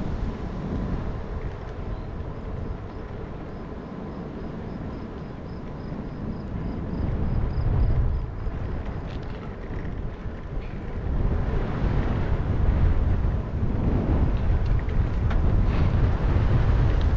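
Wind buffeting a helmet- or bike-mounted action camera's microphone while cycling, a low rumble that grows louder over the last several seconds. A faint, rapid high ticking runs for a few seconds near the start.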